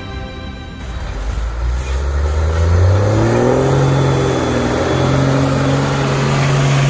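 An engine revs up, its pitch climbing for about two seconds, then runs steady at high speed.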